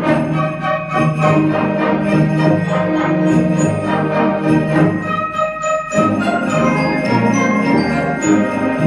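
Concert band playing, with sleigh bells jingling in a steady beat over the sustained brass and woodwind chords.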